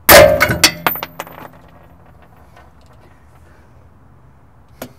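A metal object crashing onto pavement: one loud clank that rings on, followed by several smaller clinks over the next second and a half. A couple of quieter knocks come near the end.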